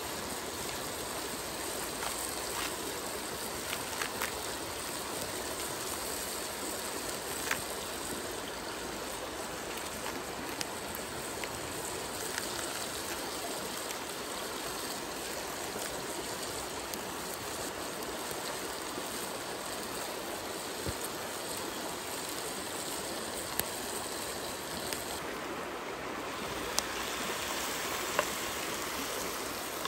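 Shallow stream babbling steadily, with a few faint clicks and taps of handling scattered through it.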